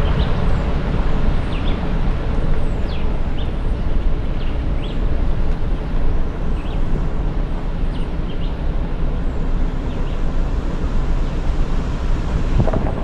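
Vehicle travelling, a steady rumble with heavy wind buffeting the microphone.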